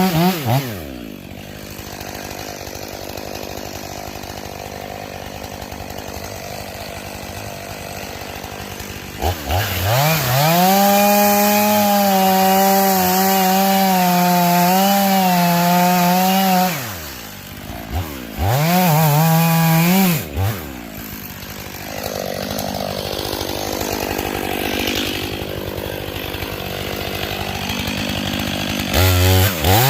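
Two-stroke chainsaw alternating between idle and full throttle. It drops to idle about a second in and idles for about eight seconds. It is then blipped and held at full revs for about six seconds, as when cutting through a log, revved briefly once more, and settles back to idle before revving up again at the very end.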